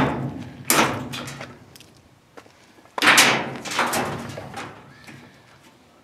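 Two loud clattering knocks, about a second in and again at three seconds, with lighter rattles after each: parts of a washing machine's sheet-metal and plastic cabinet being handled and pulled apart.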